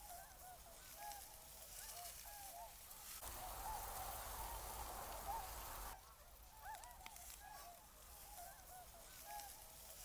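A large flock of swans calling on open water: many short overlapping calls over a steady hiss. The background changes abruptly twice, about three and six seconds in.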